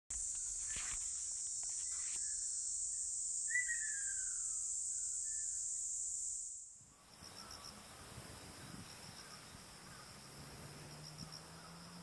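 A loud, steady, high insect chorus with a few short falling bird calls, fading out about seven seconds in. Then comes quieter outdoor ambience with faint pulsing insect trills and a low steady hum.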